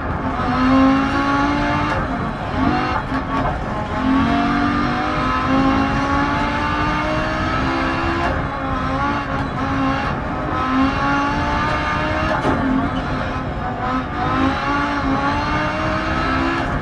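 Rally car engine revving hard, its pitch climbing and dropping back over and over, every second or two, as it is driven through the gears on a gravel stage.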